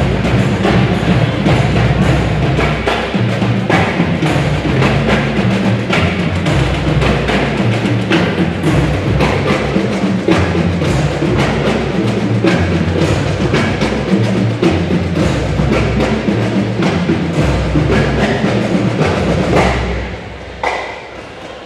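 School marching band playing, with drums and sharp clicking hits to the fore over sustained low tones; the music stops about 20 seconds in.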